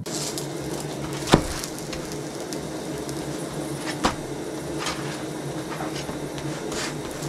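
Slotted metal spatula clacking and scraping against a flat chapati pan as chapatis are turned and stacked, with a sharp clack about a second and a half in, another about four seconds in, and lighter taps later, over a steady low hum.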